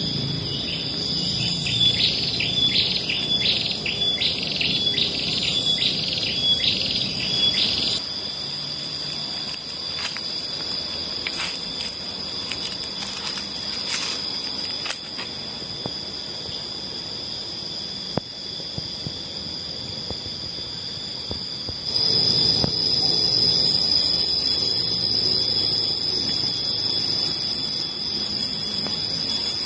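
Tropical woodland ambience: insects droning steadily at a high pitch, with a bird repeating a short call about once every second over the first several seconds and scattered calls after. The insect drone grows louder about two-thirds of the way through.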